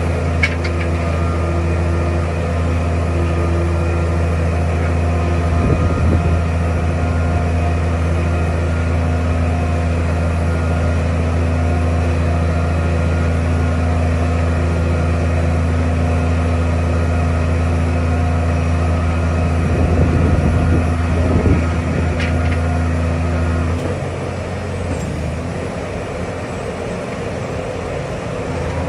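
Diesel engine of a CFA (continuous flight auger) piling rig running steadily under test, with a few metallic knocks. About 24 s in the engine note drops and quietens, then rises again near the end.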